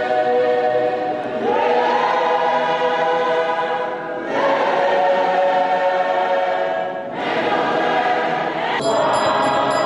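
A choir of many voices singing in long held phrases, a new phrase starting every few seconds. Near the end a faint high, quick ticking joins in, about four a second.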